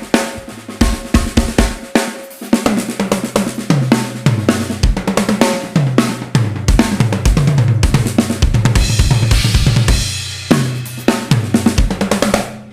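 Drum kit playing a groove, with kick drum, snare, hi-hat and cymbal hits over a bass line. The playing breaks off near the end.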